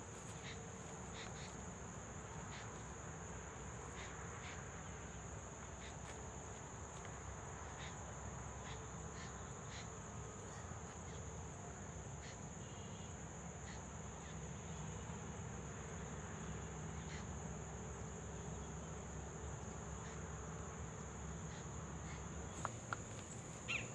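Steady high-pitched insect chorus, a continuous shrill chirring that does not let up, over a faint low rumble with a few soft ticks.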